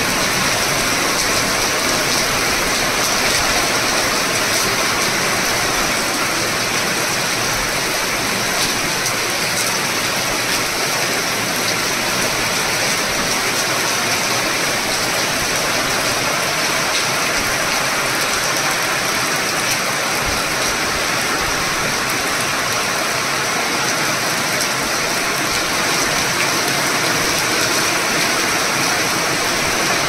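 Torrential rain pouring down on tree leaves and splashing on paving stones, a steady, even hiss with no let-up.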